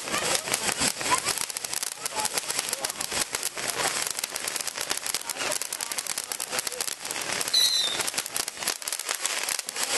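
Safe-and-sane ground fountain fireworks spraying sparks with a continuous hiss and dense crackling, with a brief louder high squeal about three-quarters of the way through.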